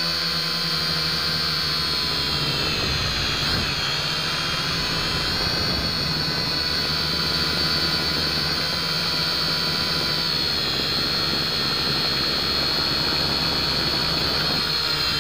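Syma X5C toy quadcopter's four small brushed motors and propellers whining steadily in a hover, heard close up from its onboard camera, with the pitch wavering slightly about three and a half seconds in.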